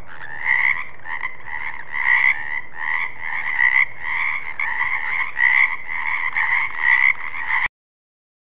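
Frogs croaking: a steady run of repeated calls that swell about once or twice a second, cutting off suddenly near the end.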